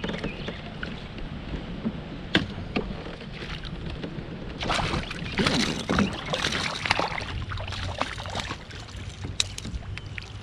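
Water splashing and sloshing beside a kayak as a hooked smallmouth bass is played and brought to the net, busiest about halfway through. Wind rumbles on the microphone throughout, with a few sharp knocks against the hull.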